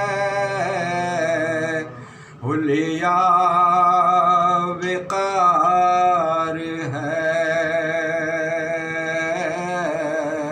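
A man singing soz-khwani, an unaccompanied Shia elegy, in long held notes with a wavering, ornamented pitch, pausing for breath about two seconds in.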